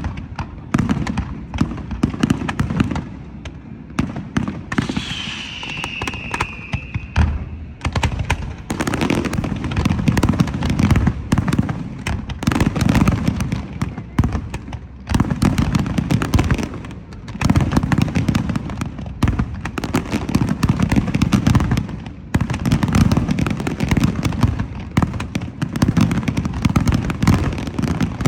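Aerial fireworks going off in rapid, dense salvos of bangs and crackles with a deep rumble. There are brief lulls, and a falling whistle from a shell about five seconds in.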